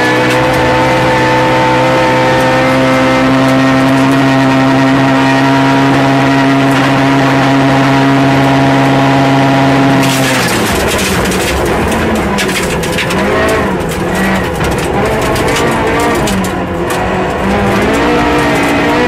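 Rally car engine heard from inside the cabin on a gravel stage, held at steady high revs for about ten seconds, then suddenly dropping and rising and falling repeatedly as the driver lifts, shifts and accelerates through the bends, with clattering throughout the second half.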